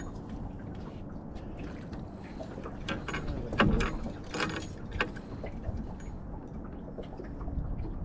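Water lapping against a small boat, with a few short knocks and rustles about three to five seconds in as a hooked perch is handled and lifted aboard.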